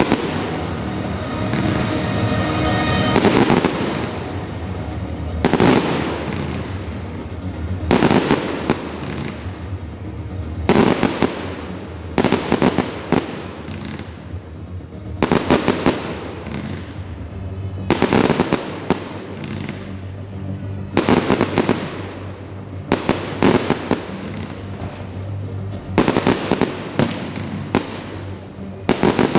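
Aerial firework shells bursting with sharp bangs every two to three seconds, often two or three in quick succession, each followed by crackling and echo. Music plays underneath.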